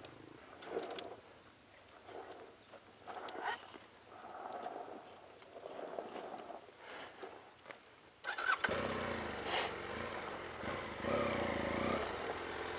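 A BMW F 800 GS's parallel-twin engine is started about eight seconds in and then runs steadily at idle. Before that, only soft, irregular scuffs and knocks are heard.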